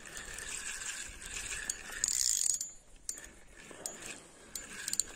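Spinning reel's mechanism whirring and clicking while a hooked carp is played on the line, loudest about two seconds in, with a few sharp clicks.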